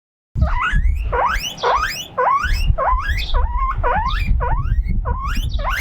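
Guinea pig wheeking loudly and over and over, about two rising squeals a second, starting a moment in; the owner puts the calling down to it being left alone and lonely. Wind rumbles on the microphone underneath.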